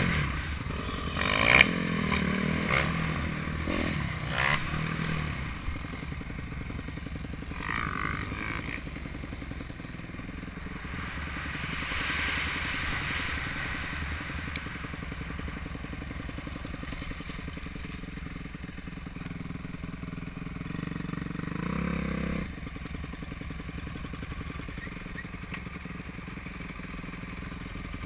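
Suzuki RM-Z250 four-stroke single-cylinder dirt bike engine running under way, revs rising and falling. A few sharp knocks and clatter from the rough trail come in the first few seconds.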